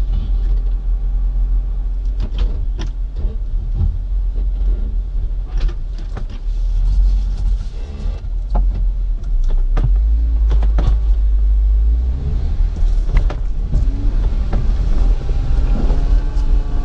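A 4x4's engine running under load as it crawls slowly up a rocky trail, with a heavy rumble and repeated knocks and crunches from tyres and underbody on rock. The engine gets louder about ten seconds in, and its pitch rises again near the end.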